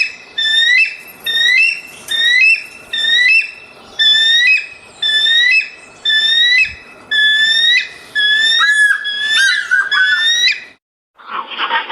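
A bird giving a long series of short, rising whistled calls, about two or three a second, with a few swooping notes near the end. The series stops shortly before a different, harsher bird call starts.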